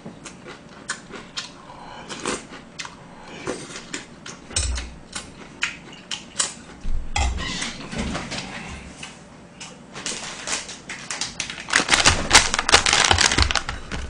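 Close-miked eating sounds: many quick clicks of chewing, with a metal spoon clinking against an earthenware bowl of gomtang. For the last two seconds or so the sound turns into a denser, louder crackling rustle as a plastic wet-wipe pack is handled.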